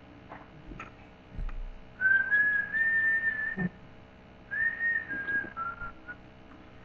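A person whistling two notes: a long held one that rises slightly, then a shorter one that steps down in pitch.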